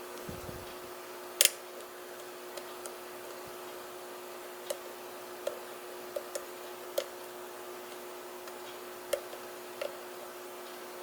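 Metal lock pick working the outer pins of a Mul-T-Lock pin-in-pin cylinder held under tension, giving about ten sharp, irregular clicks as pins are lifted and set. The loudest click comes about a second and a half in, over a steady faint hum.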